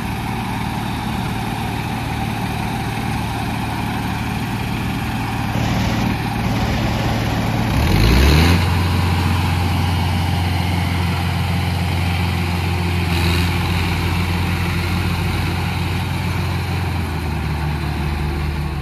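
Diesel engines of two tractors, a Massey Ferguson 7250 and a Mahindra, running while they pull against each other on a rope at full force. About eight seconds in, the engine note revs up and then holds a steady, heavier tone under load.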